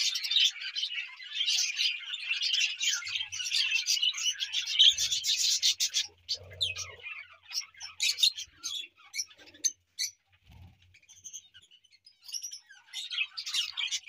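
A flock of budgerigars chattering and chirping, busy and dense for the first half, then thinning to scattered chirps before picking up again near the end.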